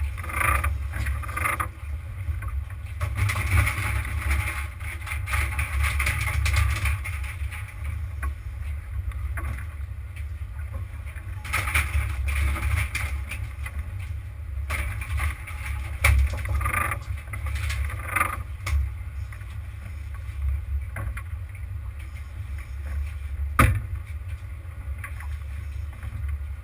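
Sport-fishing boat at sea: a steady low rumble, with a hiss of washing water that swells and fades every few seconds. A single sharp knock sounds near the end.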